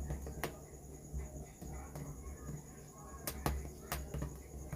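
A banana peel roasting over a fire: a low steady rumble with a few scattered sharp clicks, several close together past the middle.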